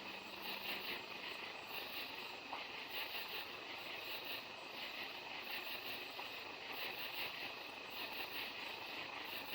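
Night insect chorus, a steady pulsing trill from many insects at once, over a low, even background hiss.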